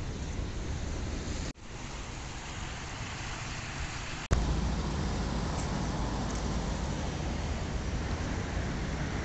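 Steady outdoor street noise of road traffic and wind, with two abrupt cuts about a second and a half and about four seconds in; after the second cut a louder, deeper rumble takes over.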